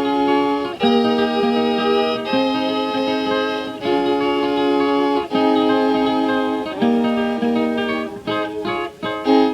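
A 1931 hot jazz band recording played from a 78 rpm record: the opening ensemble passage, with held chords changing about every second and a half over a guitar, moving to shorter, choppier notes near the end.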